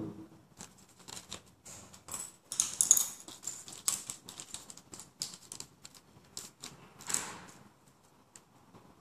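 Hands handling a plastic-wrapped art brush pack and marker pens: a run of irregular sharp clicks and crinkles, densest about two to four seconds in, with another cluster near seven seconds.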